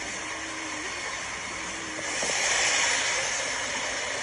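Truck driving along, heard from inside the cab: steady road and wind noise that swells louder about two seconds in, then settles.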